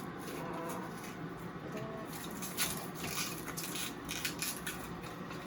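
Small-parts packaging being worked open by hand: crinkling and rustling, with a run of quick crackles about halfway through.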